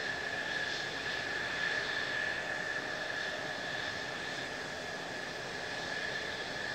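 Mitsubishi F-2 fighter's F110 turbofan running at taxi power: a steady high whine over a rushing hiss.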